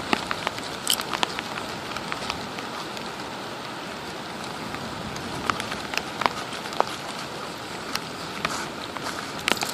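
Steady rain falling, with scattered sharp ticks.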